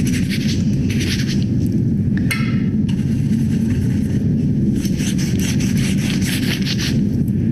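Paintbrush bristles scraping in quick rasping strokes as paint is flicked and splattered onto fabric, in spells at the start, briefly in the middle and again near the end, over a steady low hum.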